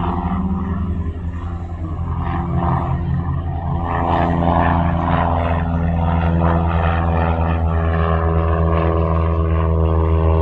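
Cessna 172N's four-cylinder Lycoming piston engine and propeller droning steadily as the plane climbs out after takeoff. The sound dips briefly about a second in, then grows a little louder and holds steady.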